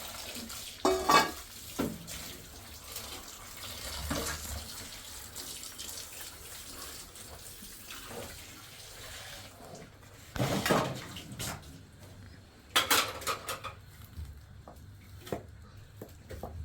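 Water running for the first several seconds, with dishes clattering; the water stops, and a few louder clatters of dishes follow, the loudest about ten and thirteen seconds in.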